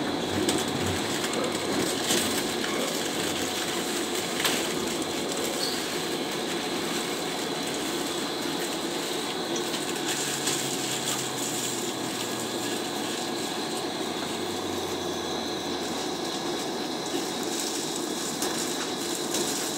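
Metro train heard from inside the car, running through the tunnel and slowing into the station: a steady rumble of wheels on rail with a few sharp knocks in the first seconds, and a low motor hum that falls in pitch from about halfway as the train brakes to a stop at the platform.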